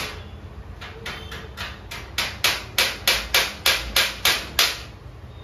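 Hammer tapping a fixing at a split air conditioner's metal wall-mounting plate, about three blows a second. The blows are light at first, then about two seconds in come about nine much harder ones before they stop.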